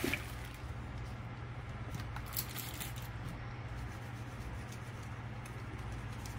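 Faint light clicks and taps of plastic toy pieces being handled, one a little louder about two and a half seconds in, over a steady low hum.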